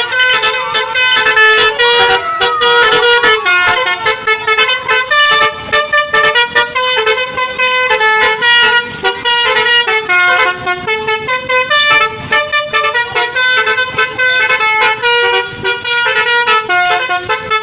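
Basuri (telolet) musical air horn on a bus playing a loud run of changing notes, with short breaks between phrases.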